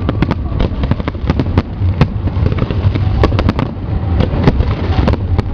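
Fireworks display going off: a rapid, uneven run of sharp bangs and crackles, several a second, over a constant low rumble of shell bursts.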